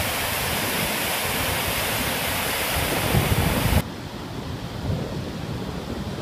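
Wind buffeting the microphone outdoors, with low gusty rumbles under a steady loud hiss. About four seconds in the hiss drops suddenly to a quieter level, and the gusts go on.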